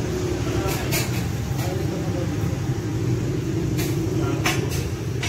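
Steady low engine rumble, like motorbikes and traffic on a busy street, with a few short hisses at about one second in and again near the end.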